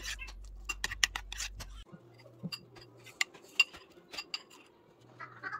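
Metal spoon clinking and scraping against a ceramic bowl in quick irregular clicks while stirring a sticky flour-and-water batter. After a cut about two seconds in, the sound drops to quieter, scattered clicks and light clinks.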